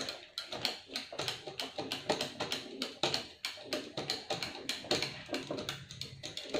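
Small plastic drive gears of an HP 2515 printer's scanner carriage clicking in a rapid, uneven series as they are turned by hand against the toothed plastic rack. The gears and motor are freshly sprayed with WD-40 and are being worked to free a motor that sticks, the fault that keeps the scanner carriage from travelling.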